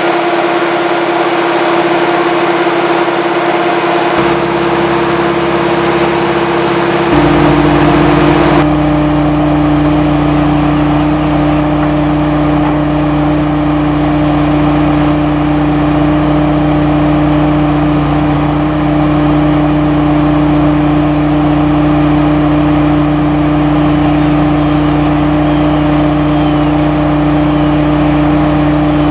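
Marsh Master MM-2 amphibious tracked vehicle's engine running steadily with a strong hydraulic whine as its boom-mounted anchor installer drives a utility anchor into the ground. The pitch shifts a few times in the first nine seconds, then holds steady.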